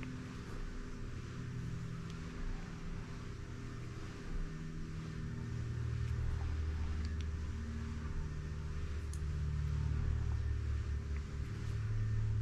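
Low, steady mechanical hum with a faint constant tone, growing a little louder about halfway through, with a few faint light clicks.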